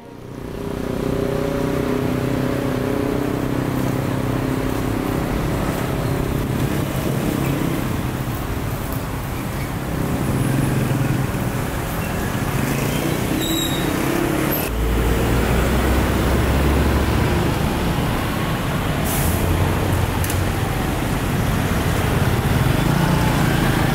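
Road traffic: cars and trucks running past on a busy street, with a deep engine rumble swelling partway through.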